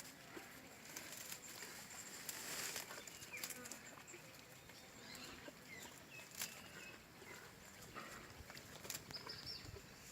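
Faint open-field ambience with a few short, high bird chirps scattered through it, and occasional clicks and rustles.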